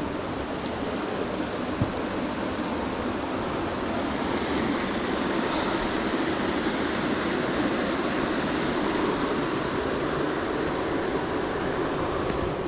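Steady rush of fast-flowing water in a beck, growing a little louder after a few seconds, with one faint tap about two seconds in.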